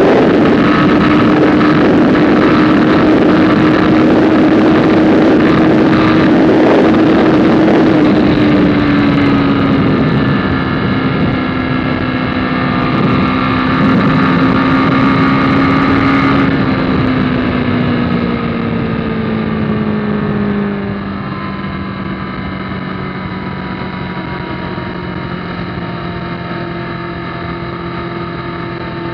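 Kawasaki ZZR1400's inline-four engine pulling at motorway speed with wind rushing over the bike. From about eight seconds in, the engine note falls gradually as the bike slows, and it grows quieter about twenty seconds in.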